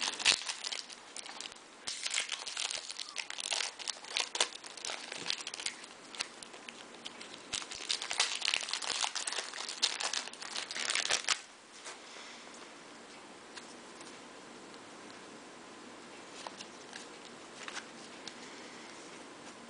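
Foil wrapper of a Bowman jumbo baseball card pack crinkling and tearing as it is opened by hand. The crinkling stops about eleven seconds in, leaving only a few faint ticks as the cards are handled.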